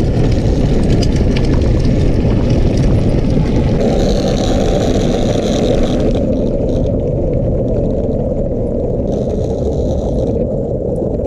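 Steady rumble of small wheels rolling fast over asphalt, mixed with wind buffeting the microphone, while a dog tows the rider on a leash. A brighter hiss comes and goes twice.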